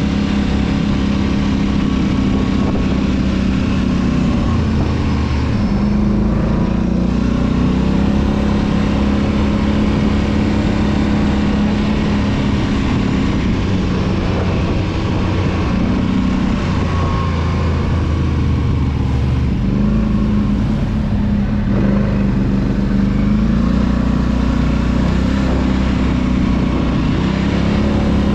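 ATV engine running under way while riding, its revs rising and falling several times as the throttle changes, over a steady rush of noise.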